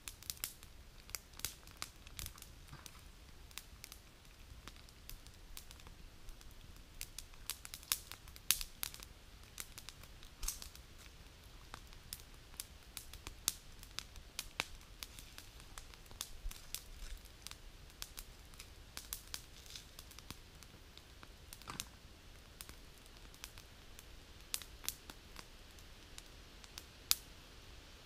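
Wood campfire crackling, with irregular sharp pops scattered throughout.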